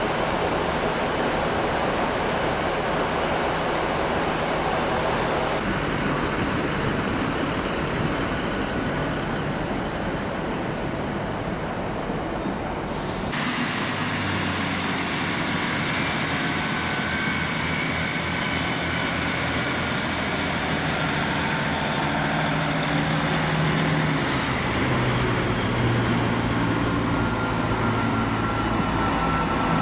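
Diesel train engines running steadily, their low hum stepping up and down in pitch several times. The sound changes abruptly about halfway through, and a faint high whine runs above it from then on.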